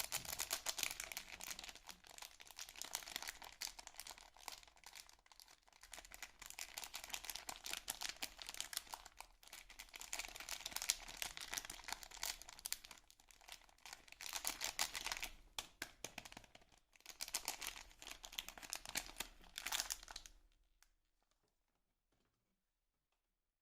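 Soap packaging being handled and unwrapped: wrapper crinkling and crackling in several long bursts, with tearing, stopping about three seconds before the end.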